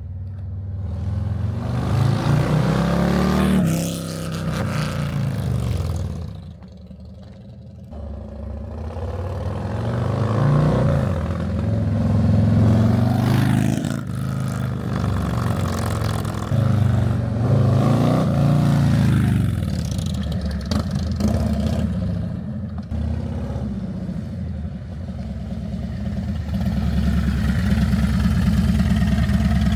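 Harley-Davidson Milwaukee-Eight 117 V-twin running through a Sawicki mid-length exhaust, revved up and back down several times and then settling into a steady idle near the end. The note is deep and throaty.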